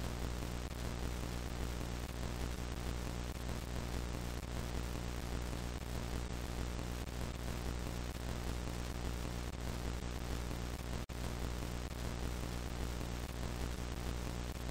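Steady static hiss with a low electrical hum under it: the sound of a lost transmission signal. It drops out for an instant about eleven seconds in.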